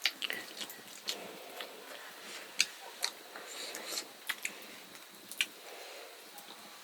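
Eating sounds: irregular sharp clicks and taps of utensils against dishes, with chewing.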